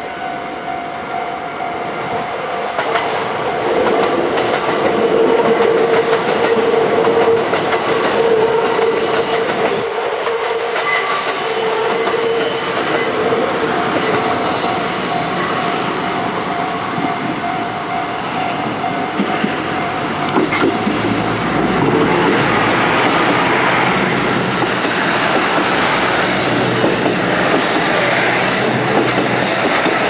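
JR Central KiHa 75 diesel multiple unit approaching and passing close over a level crossing, its diesel engines running and its wheels clattering on the rails, with the crossing's warning alarm ringing. The noise grows louder about two-thirds of the way through as the cars pass the crossing.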